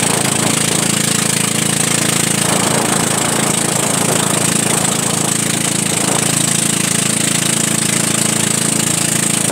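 Motorboat engine running steadily at speed while towing, a constant drone mixed with rushing wind and water noise.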